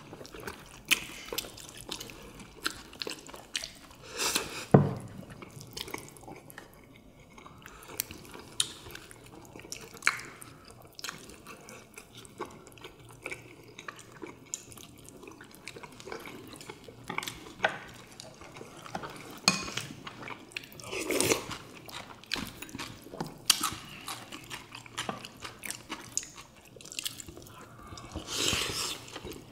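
Eating at a table: chopsticks clicking and tapping against ceramic bowls and plates in short irregular strikes, with wet chewing and slurping from several people.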